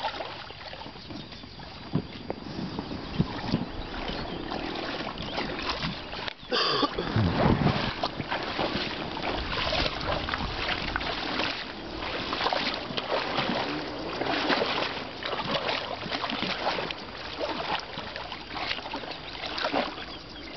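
Water splashing and sloshing around a small boat being pushed through the water with a pole, with irregular knocks of the pole and boat. It grows louder about six seconds in.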